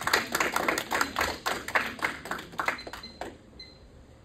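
Audience applauding with hand claps; the clapping thins out and stops about three seconds in.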